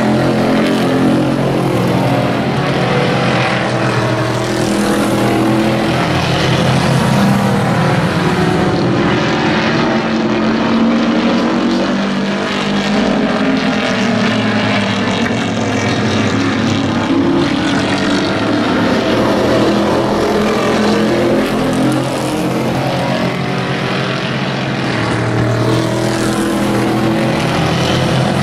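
A pack of pickup race trucks running at racing speed, several engines together in a loud, steady drone that swells a little as the trucks pass.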